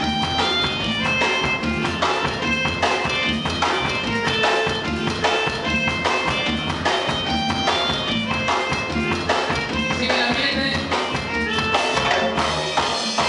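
Live band playing with a steady beat: electronic keyboards over a drum kit.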